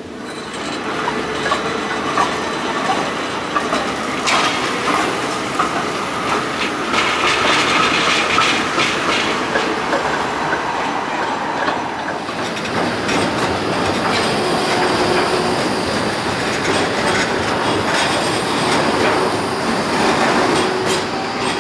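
Geneva TPG low-floor trams rolling along street track, wheels clattering over rail joints and switch points in bursts of clicks, with a faint metallic wheel squeal on the curve in the middle.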